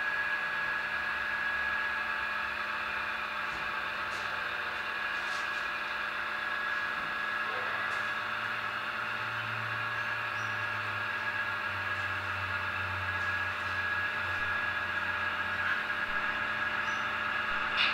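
HO scale model train climbing a plywood helix: a steady electric hum with a constant high whine, and a low rumble that swells from about eight seconds in to about fifteen as the locomotives pass close.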